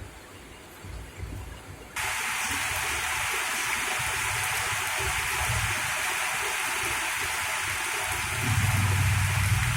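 Heavy rain pouring down in a steady, even hiss that starts abruptly about two seconds in; before that there is only faint rain and low rumbles. Near the end a low steady hum joins the rain.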